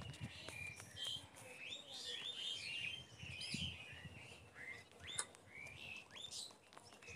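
Several birds chirping together: many short, high chirps and quick rising notes overlapping one another, with a few sharper calls a little past the middle.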